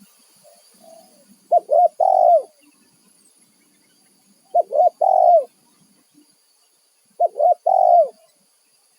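Spotted dove cooing: three phrases about two and a half seconds apart, each two short notes followed by a longer, falling note.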